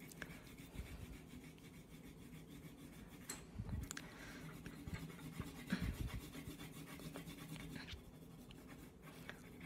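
Faint scratchy rubbing of a colored pencil shading paper in quick back-and-forth strokes, the pencil held at an angle, with a few soft bumps in the middle.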